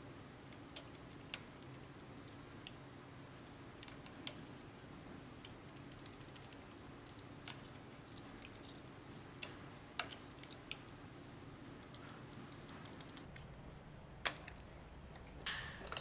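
Scattered small clicks and light metallic taps of a screwdriver working the screw terminals of a three-way light switch as wires are tightened down, with one sharper click about 14 seconds in. A faint steady hum runs underneath.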